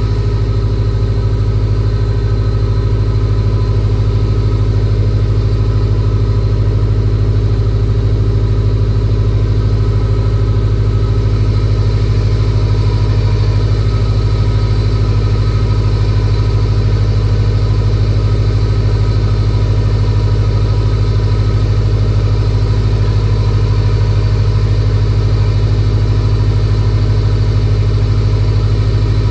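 Freshly rebuilt Subaru EJ257 turbocharged 2.5-litre flat-four idling steadily. The builder suspects a vacuum leak somewhere, though it shows no oil leaks.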